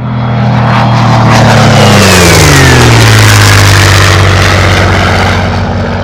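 A loud engine passing by: its pitch drops sharply as it goes past, then the sound holds steady and begins to fade near the end.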